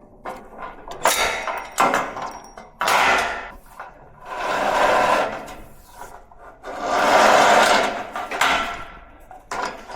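Metal parts of a car lift being handled: a few knocks, then several long scraping slides of about a second each, like a steel shaft being worked along its housing.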